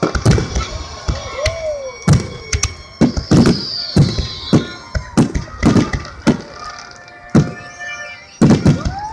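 Aerial firework shells bursting in quick succession, a rapid series of booms about two a second, during a dense stretch of the display.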